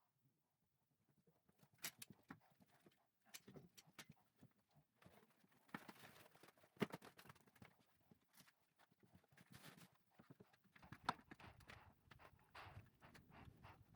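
Faint, irregular knocks and clicks, with a low rumble coming in about eleven seconds in.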